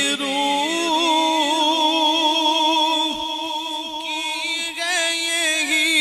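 A male qari singing a devotional naat through a microphone and sound system, a single voice with no instruments, holding long notes with a wide wavering vibrato and quick ornamental turns.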